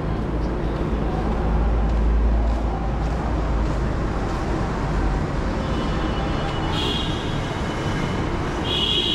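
Steady road traffic noise with a deep low rumble, and a short high-pitched tone sounding twice near the end.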